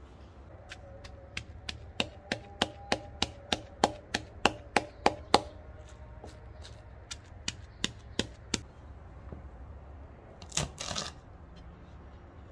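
Knife chopping on a cutting board: a run of sharp, even strokes about three a second, then slower, scattered strokes, with a short rustling scrape near the end.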